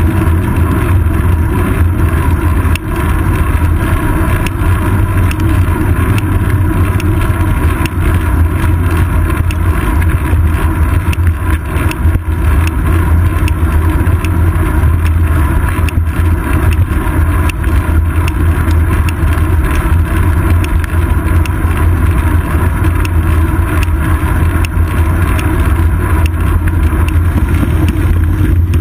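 Bicycle rolling along a paved road, heard through a seat-post-mounted GoPro: a loud, steady rumble of wind and road vibration with a deep low drone.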